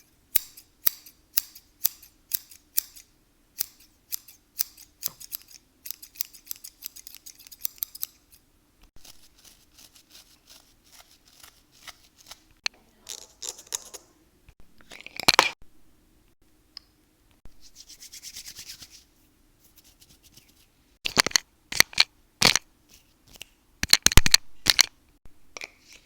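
Scissors snipping hair: sharp, even snips about twice a second at first, then softer rubbing and brushing sounds, and a run of louder snips near the end.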